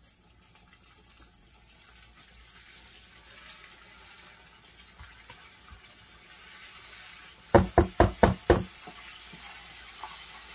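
Battered chicken frying in hot oil: a steady sizzle that slowly grows louder. About two thirds of the way in, five quick sharp knocks.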